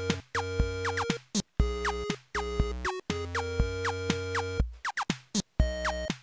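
Upbeat electronic background music: synthesizer notes over a drum-machine beat, played in short phrases broken by brief gaps.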